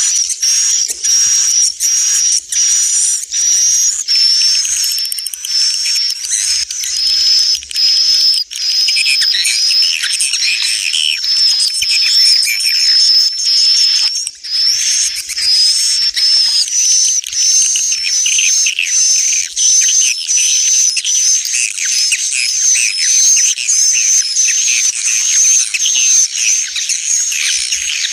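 Recorded swiftlet calls: a loud, continuous high-pitched twittering of many rapid chirps. It is the 'inap' roosting lure sound played in swiftlet houses to draw the birds in to roost.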